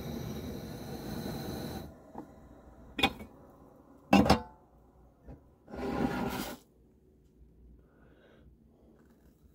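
Propane camp-stove burner running under a lidded saucepan of water, a steady hiss that cuts off suddenly about two seconds in. Then two sharp metal clanks as the steel pot lid is lifted off and set down, and a short rush of noise about six seconds in.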